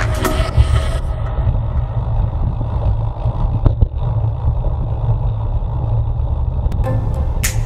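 Steady low rumble of wind and road noise from a moving vehicle, picked up by an onboard camera's microphone. Background music fades out about a second in and comes back near the end.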